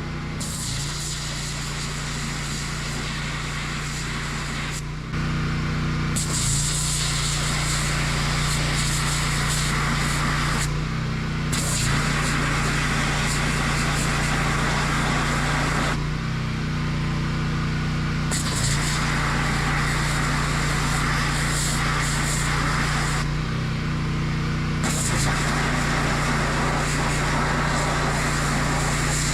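3650 PSI engine-driven pressure washer running steadily while its high-pressure jet cuts into a pumpkin, the spray hissing in bursts of several seconds. The spray cuts out four times as the trigger is let go, and the engine note changes each time.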